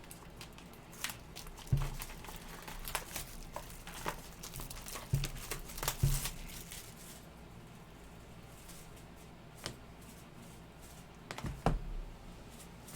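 Plastic shrink-wrap being torn and peeled off a trading-card box, crinkling and crackling for about seven seconds, with a few knocks from the box being handled. It goes quieter after that, with scattered clicks and a couple of knocks near the end.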